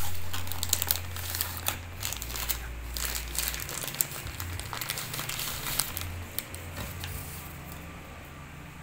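Crinkling and crackling with many sharp clicks over a low steady hum. The clicks are densest at first, then thin out as the sound slowly fades.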